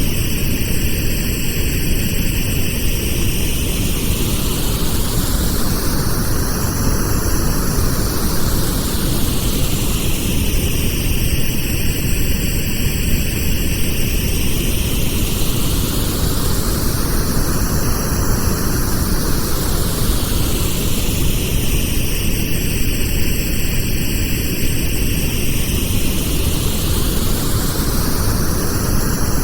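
Steady pink noise, a full, even hiss with a slow whooshing sweep that rises and falls about every eleven seconds.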